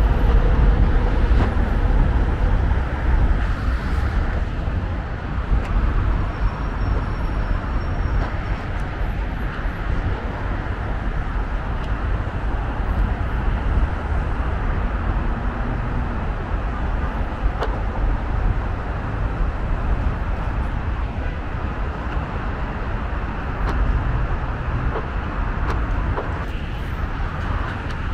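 Steady road traffic: cars passing in a constant wash of tyre and engine noise with a heavy low rumble.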